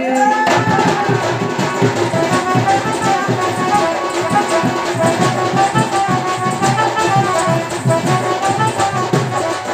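Instrumental interlude of Sambalpuri folk dance music: a barrel-shaped dhol drum beaten in fast, dense strokes under a wavering melody line.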